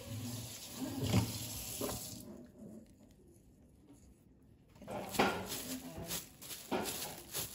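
Salt and coarse black pepper pattering out of a shaker onto raw beef short ribs, a steady hiss with a few ticks. After a short quiet gap about halfway, a plastic food glove crinkles as the rub is pressed into the meat.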